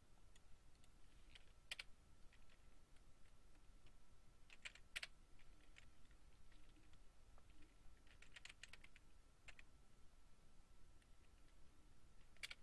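Faint computer keyboard keystrokes in a few short bursts, typing commands into a terminal, over a faint steady high tone.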